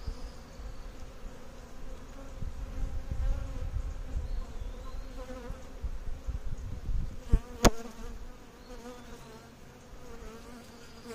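Honeybees buzzing steadily in a swarm-like hum around an open nuc box. Two sharp knocks a little over seven seconds in, the second louder.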